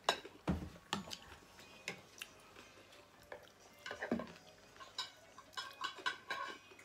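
Metal spoon and fork clinking and tapping against ceramic plates and bowls during a meal: scattered, irregular light clicks, a few with a short ring.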